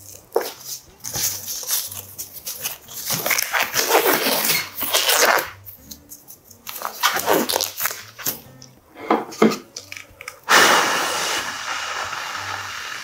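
Thin black disposable gloves rustling and crinkling as they are pulled onto the hands, in strings of short crackles. Near the end a steadier rushing hiss takes over.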